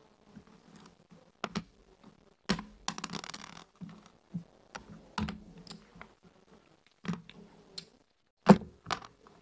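Backgammon checkers clacking down onto a wooden board and against one another as they are moved by hand: an irregular string of sharp clicks, the loudest about eight and a half seconds in, with a short scrape of a checker sliding about three seconds in.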